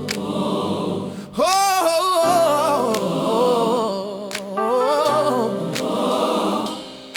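Gospel choir singing wordless, drawn-out vocal runs with vibrato, over warm keys and a few sharp percussion hits.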